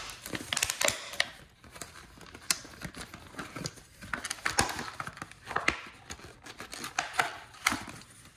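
Tools and their packaging being handled: scattered clicks and light knocks with rustling, the sharpest about a second in and again around two and a half, four and a half and seven and a half seconds.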